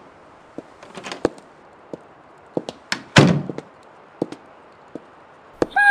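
Sound-effect door and scattered light knocks and clicks, with one heavier door thud that rings out briefly about three seconds in.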